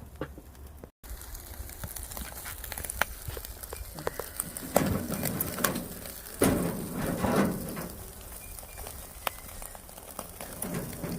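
Firewood fire crackling and popping with a steady sizzle as mackerel grills over it. A few louder low, muffled sounds come about five and seven seconds in.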